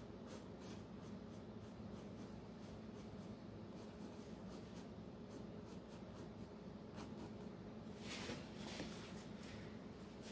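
Faint scratching of a pencil on sketchbook paper as short strokes are drawn, with a denser run of strokes about eight seconds in, over a faint steady hum.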